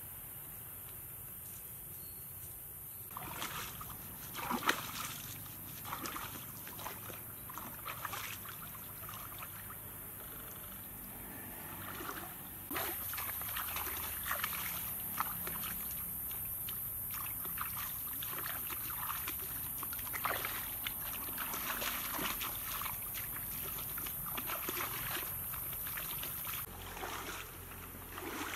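Shallow stream water splashing and sloshing as a person wades and moves about in it, in irregular bursts of splashes that start a few seconds in and grow busier from about halfway.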